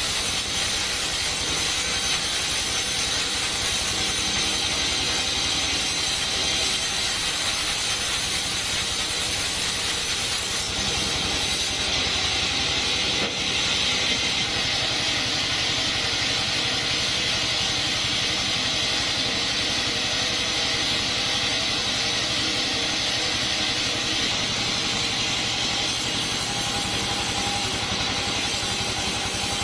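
Sawmill bandsaw running steadily, cutting through coconut wood, with the machine's motor hum underneath.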